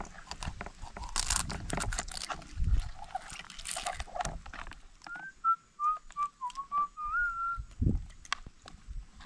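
Knife scraping along a small piau fish on a cutting board in quick rasping strokes as it is scaled and cleaned. About five seconds in, someone whistles a short wavering tune of a few notes for two to three seconds. A dull knock comes near the end.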